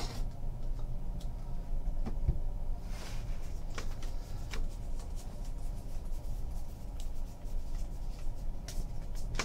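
Faint rustle and a few soft clicks of a stack of baseball trading cards being slid through by hand, one card at a time, over a low steady hum.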